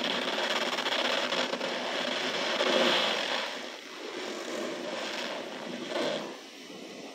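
Hands squeezing and crushing cornstarch powder in a plastic tub: a dense, steady crunching, loudest about three seconds in, with one more squeeze near six seconds.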